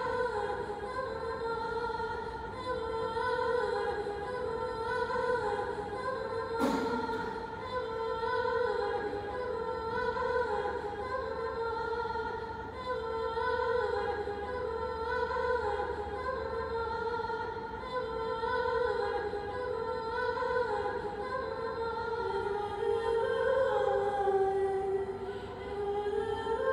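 A woman's solo voice singing long, wavering, held notes that step up and down in pitch, in the style of Persian vocal music, played back over the installation's speakers. A single sharp knock sounds about seven seconds in.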